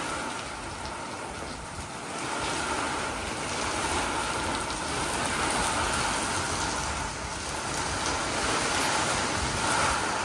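Heavy monsoon rain pouring down hard, a steady rushing downpour that swells and eases slightly.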